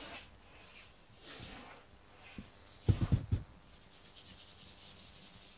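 Rubbing and rustling of a camera being handled, with a quick run of low thumps about three seconds in as it is moved and set down.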